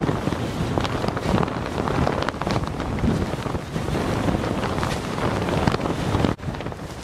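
Strong, gusty wind buffeting the microphone. It starts suddenly and drops out briefly about six seconds in.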